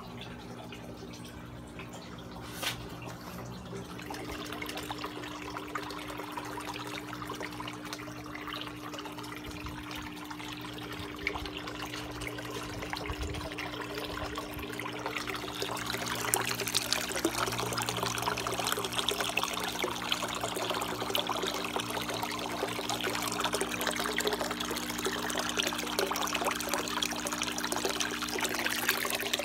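Aquarium water trickling over a steady low pump hum, the trickle growing louder about halfway through, with one brief knock near the start.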